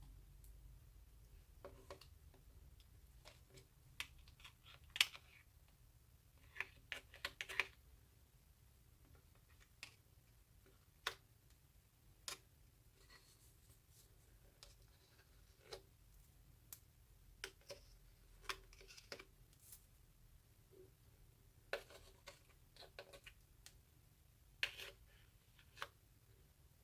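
Slime being handled: faint, scattered clicks, pops and crackles, some in quick clusters of a few at a time.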